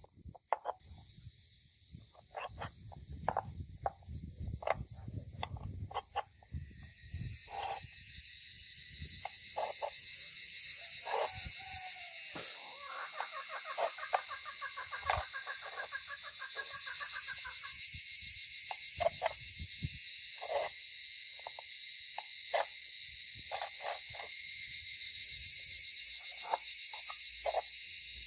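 Short metal clicks and taps of steel wire, pliers and a small spanner against steel angle iron as the wire is twisted tight. From about seven seconds in, a steady high-pitched insect chorus with a fast pulsing trill builds in the background.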